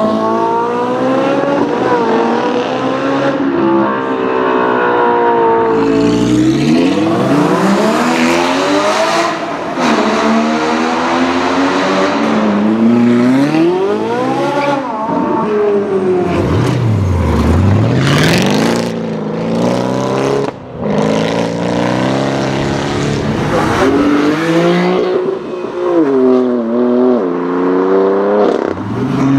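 Several supercar engines in turn, revving hard and accelerating. The engine note climbs and drops back again and again as each car pulls away and shifts.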